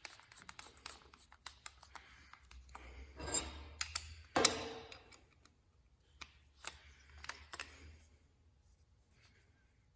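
Small steel parts clicking and scraping as a bolt, washer and pulley are fitted onto a belt grinder's tracking arm. There is a louder knock about four and a half seconds in, and fewer clicks near the end.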